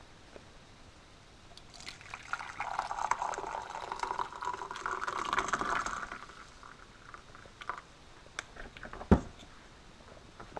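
Coffee poured from a French press into a ceramic mug. The pour starts about two seconds in and runs for about four seconds. A few light clicks follow, then one sharp knock.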